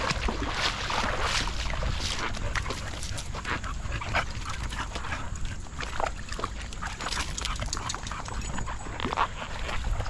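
A dog whining in short, repeated cries, over splashing water from dogs wading through a shallow creek.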